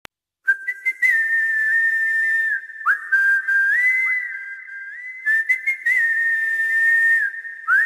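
Whistled melody opening a Telugu folk song: one clear note that holds, then steps and slides between a few pitches, over short clicks and a faint rattly backing. It starts about half a second in.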